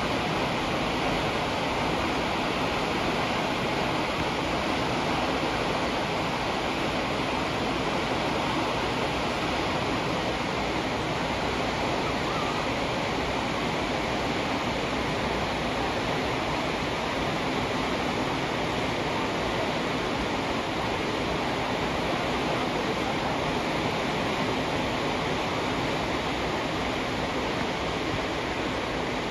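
Steady, even rushing of water and wind along a moving cruise ship, unchanging throughout.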